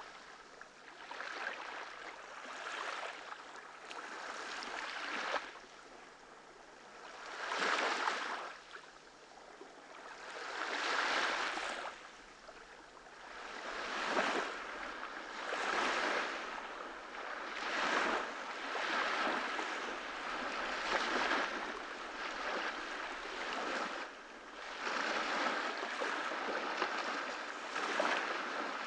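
Small ocean waves breaking and washing up a beach, a hiss that swells and falls in repeated surges every two to three seconds.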